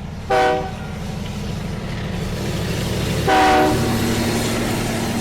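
Train sound: a steady low running rumble with two horn blasts, a short one near the start and a longer, louder one about three seconds in.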